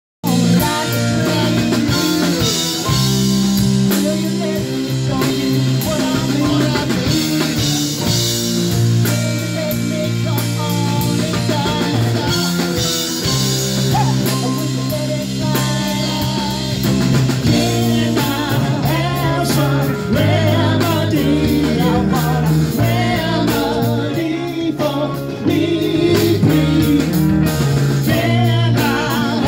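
Live rock band playing: electric guitar, bass and drum kit, with a woman singing lead vocals.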